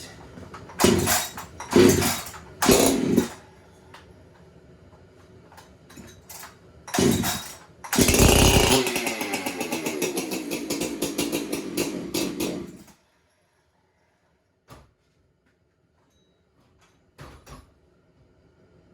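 Freshly rebuilt Jonsered 2065 two-stroke chainsaw on its first start: three quick starter-cord pulls about a second apart, another pull a few seconds later, then the engine fires and runs for about five seconds before stopping abruptly.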